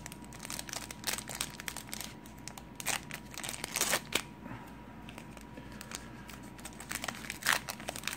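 Foil wrapper of a Score Select baseball card pack crinkling and crackling as it is torn open by hand, in irregular bursts, loudest about four seconds in and again near the end.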